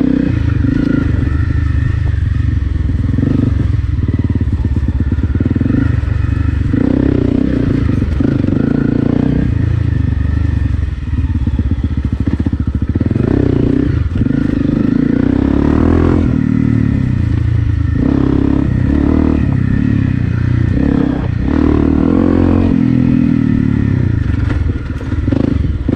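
Honda CRF250 Rally's single-cylinder 250 cc four-stroke engine, fitted with an aftermarket FMF PowerCore 4 exhaust, running under throttle on a dirt trail. The throttle eases off briefly a few times, and short rattles and knocks come from the bike bouncing over rough ground.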